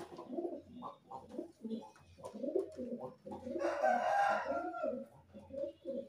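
Several domestic pigeons cooing, short low calls overlapping in quick succession. A louder, higher call lasting about a second comes about three and a half seconds in.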